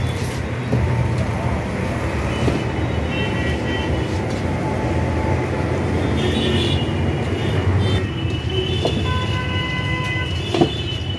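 Steady road-traffic rumble with vehicle horns sounding now and then, and a single knock near the end.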